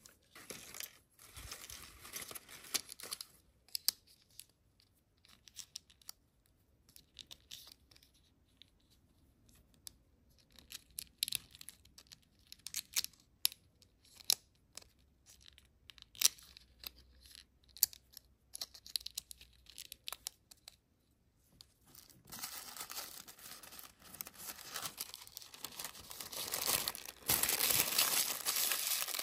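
Scattered light clicks and short crinkles as small plastic doll pieces and their wrapping are handled. About three quarters in, a steady crinkling of tissue paper being crumpled and folded takes over, loudest near the end.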